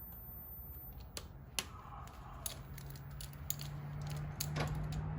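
Scattered metallic clicks and scrapes of a valve spring compressor being worked loose to release a valve spring on the engine's cylinder head, with a low steady hum coming in about halfway.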